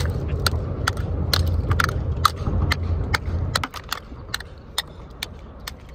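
Oyster shells being scraped and knocked off a concrete bridge piling with a rod: irregular sharp clicks and crunches, several a second. A low rumble underneath stops about two-thirds of the way through.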